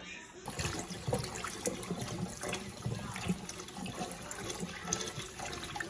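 Water running from a kitchen tap while rice is rinsed, with irregular splashing throughout.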